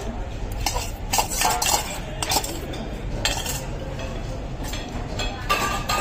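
Metal cutlery clinking against plates, a scatter of short sharp strikes over a steady low background hum.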